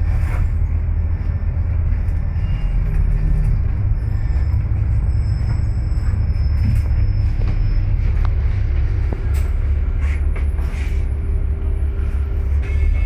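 Double-decker bus heard from inside its upper deck while moving, a steady low rumble with a faint steady whine over it and a few light clicks or rattles near the end.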